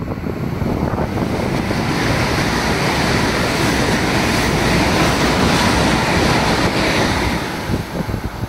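ICE 3M (DB class 406) high-speed train rushing past at speed through a covered tunnel station: a loud, steady rush of air and wheel-on-rail noise that fades near the end as the train pulls away.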